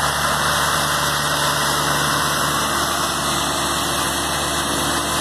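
Mahindra 4025 tractor's diesel engine running steadily under load while pulling a disc harrow.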